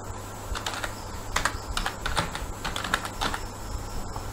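Computer keyboard being typed on: an irregular run of key clicks as a word is entered.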